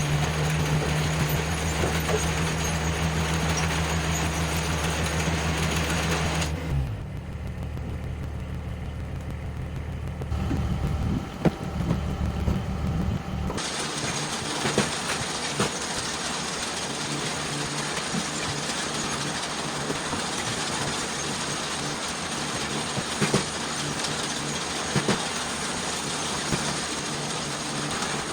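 Engine of a log splitter running steadily, with occasional sharp knocks of wood. The sound changes abruptly twice, about seven and fourteen seconds in.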